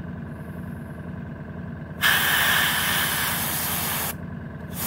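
Airbrush spraying black paint onto a miniature's base in two bursts of hissing air: one starting about two seconds in and cutting off about two seconds later, the next starting just before the end. A steady low motor hum, the airbrush compressor running, underlies it throughout.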